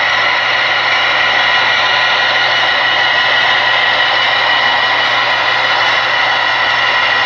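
HO scale model train running: the steady diesel engine sound of a sound-equipped model locomotive over the rolling of the train on the track, with no change in pitch or level.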